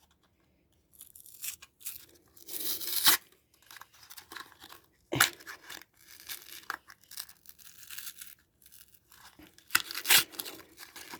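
Stiff packaging being clipped and torn open with fingernail clippers: irregular crackling and snipping, with a few louder rips about three seconds in, about five seconds in and near the end.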